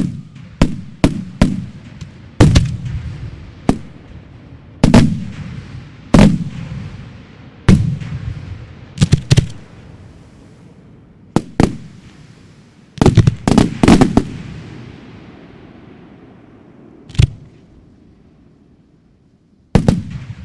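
Fireworks display: aerial shells and single shots bursting with loud, sharp bangs at irregular intervals, each followed by a rolling echo. A quick cluster of bangs comes a little past the middle, and the bangs grow sparser toward the end.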